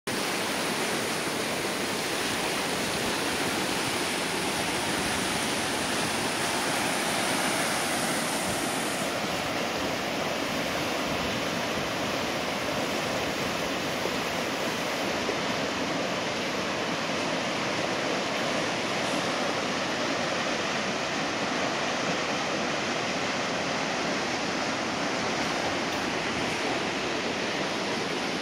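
Flash flood in a desert wash: muddy floodwater rushing and churning over the channel bed, a steady rush of turbulent water.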